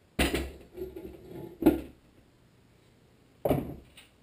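Three clunks about a second and a half apart, the middle one the loudest, as the bare aluminium Tecumseh HSK70 engine block is turned and set down on a wooden stand. Quieter handling noise comes between them.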